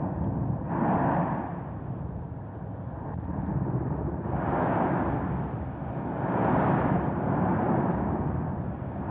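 Volcanic eruption on La Palma: a continuous deep rumble with three big swells of rushing noise, about a second in, near five seconds and near seven.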